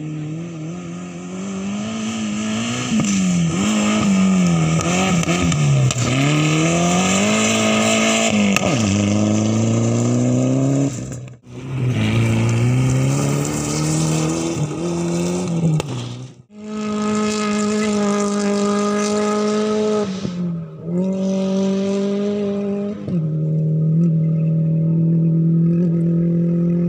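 Rally car engines at full throttle, revs climbing and dropping with each gear change as the cars pass. The sound cuts off abruptly twice, between passes of different cars.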